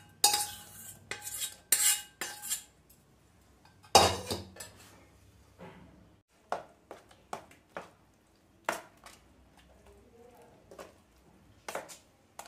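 Stainless steel cup knocked several times in quick succession against a steel plate to empty out tamarind pulp, a single loud clank about four seconds in, then a steel spoon clinking lightly and scraping on the plate while mixing the pulp into the tomato paste.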